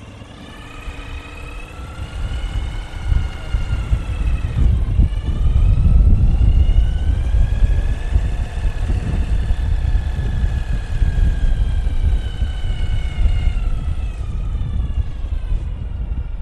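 2011 Ural Retro sidecar motorcycle's air-cooled boxer twin pulling away on the road, heard under a heavy low rumble. Its whining pitch climbs, drops suddenly about four and a half seconds in, then climbs again and levels off.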